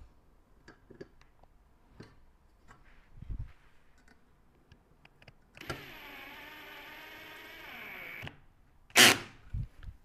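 Cordless drill-driver running for about three seconds as it drives a small screw to fix a metal cross brace to the table leg, its motor pitch wavering slightly. A loud, sharp clatter comes about a second after the motor stops, with light clicks and taps of handling around it.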